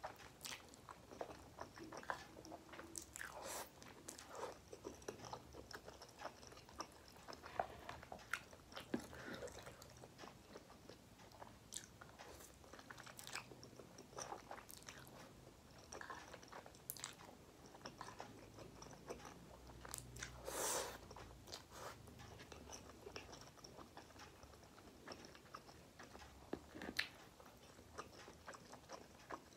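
Close-miked eating sounds, faint: a person chewing and slurping instant noodles, with many short wet mouth smacks and clicks. One longer, louder sound comes about twenty seconds in.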